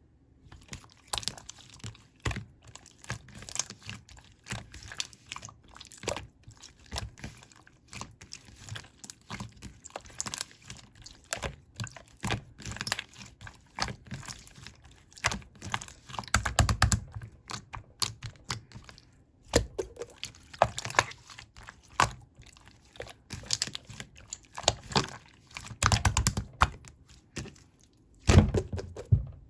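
Clear slime being squeezed and folded by hand, giving an irregular stream of small sticky clicks and pops, with a few louder, deeper squishes about halfway through and twice near the end.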